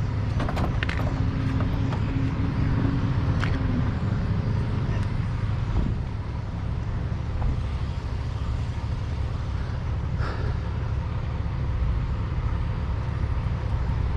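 Diesel truck engine idling steadily close by, with a few light clicks and rattles from the tow light bar and straps being handled.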